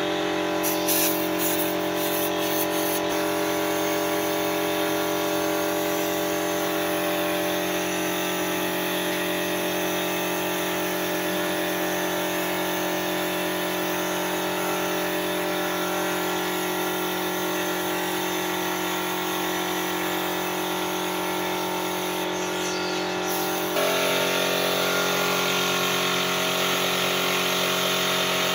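Air spray gun hissing steadily as it sprays paint, over a steady mechanical hum from the air supply. The sound shifts slightly and gets a little louder near the end.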